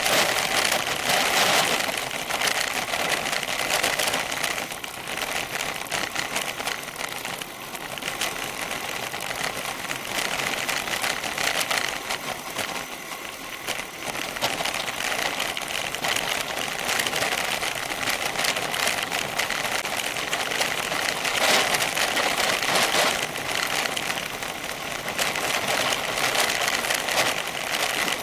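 Bicycle tyres crunching and rattling over loose gravel on a fast downhill, picked up by a frame-mounted rear camera that shakes with the bike, giving a continuous rapid clatter that swells and eases with the road surface.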